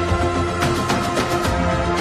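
Background music with a steady beat and sustained chords.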